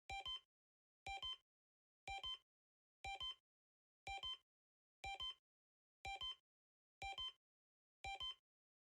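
A faint, sharp double tick repeating once a second, nine times, with silence in between: a steady clock-like ticking effect.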